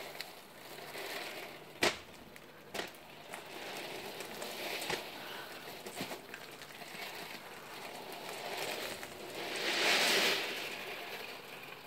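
Nearly three thousand 8 mm steel ball bearings rolling and clattering against each other across a tray, a dense rattling hiss like rain that swells and fades in waves. A few sharp clicks stand out, and the loudest surge comes near the end.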